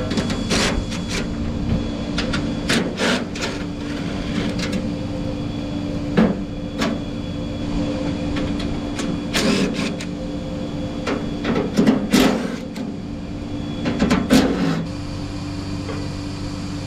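Irregular metal clanks and knocks of hand tools on tractor parts, in short clusters, as a Case IH 806 is stripped down to re-torque its cylinder head for a leaking head gasket. A steady machinery hum runs underneath.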